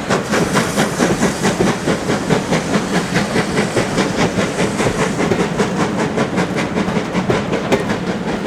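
Steam locomotive working along the line, its exhaust chuffing in a fast, steady beat over a hiss of steam.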